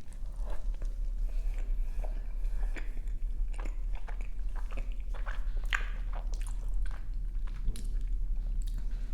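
Close-miked eating: a person biting and chewing food, with irregular small crunches and mouth clicks.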